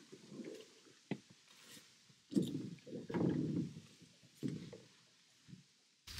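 A rowing boat and its oars being handled: a few sharp clicks, then several short bouts of low knocking and bumping.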